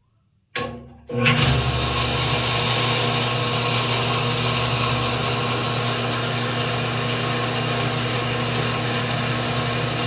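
A sharp clack about half a second in as the Square D well pressure switch closes, then the Goulds shallow-well jet pump's A.O. Smith motor starts about a second in and runs steadily with a strong hum. The pump kicks on only after pressure has dropped to about 20 psi, which the owner thinks is a sign of a faulty pressure switch.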